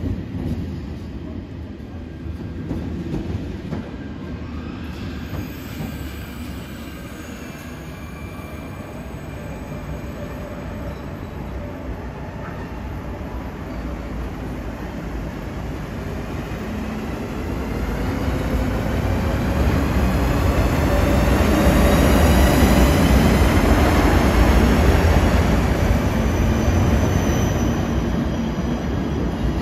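A train running on rails, with a whine that slowly rises in pitch. It grows louder through the second half and eases off near the end.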